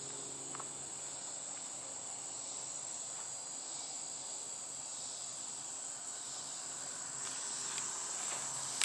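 Steady, high-pitched chorus of insects chirping outdoors, continuing without a break.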